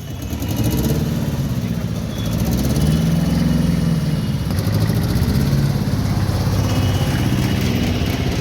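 Motor vehicle engines running and revving, their pitch rising and falling.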